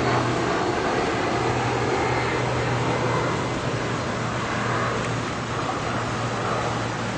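Steady background noise, a constant rush with a low hum running under it; the reagent drops make no sound of their own.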